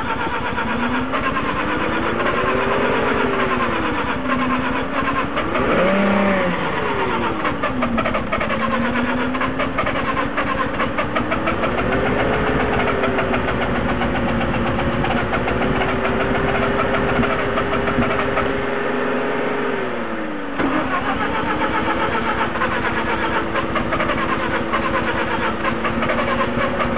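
A hard-starting car engine running unevenly, its revs rising and falling several times as the throttle is worked to keep it going, then settling to a steadier speed with one brief dip near the end. The engine is a fresh swap that the owner says is not flooded and has a good temperature sensor.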